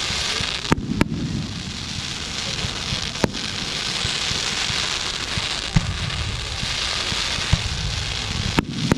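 Fireworks: a dense, continuous crackling hiss like heavy rain, from crackle effects, over a low rumble of bursts, with about half a dozen sharp bangs scattered through.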